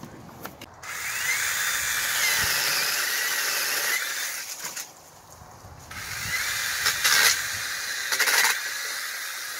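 Sainlogic 6-inch cordless mini chainsaw with a brushless motor running in two bursts of about four seconds, with a pause of about a second between them, while its chain cuts small tree branches; the motor's whine dips and rises under load. A few sharp cracks come in the second burst.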